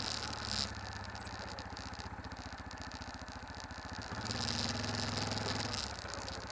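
A vehicle engine running steadily at low speed, with a louder stretch from about four to six seconds in.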